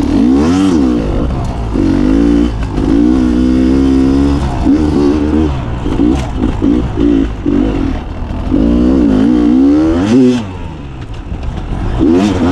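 Beta 300 RR two-stroke dirt bike engine being ridden, its pitch rising and falling over and over with the throttle. There are a few sharp knocks along the way, and it eases off to a lower, quieter note near the end.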